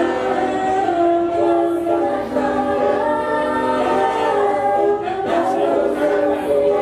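Roots reggae record playing over a sound system, carried by sung vocal harmonies with long held notes.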